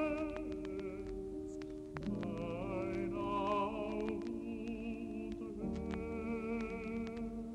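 Music: a melody of long held notes with wide vibrato over sustained low chords, the notes changing about two seconds in and again near the end, with scattered short clicks.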